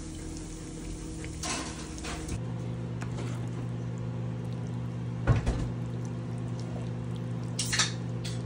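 Sauce simmering and sizzling in a frying pan, then sausages and peppers being stirred with a wooden spatula, with a few short knocks against the pan. A steady low hum runs underneath.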